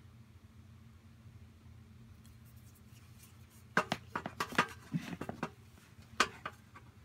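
Sharp clicks and light knocks of a wooden stick and a knife blade being handled against a stainless steel tray: a quick cluster about four seconds in and one more a second or so later. A faint low hum underneath.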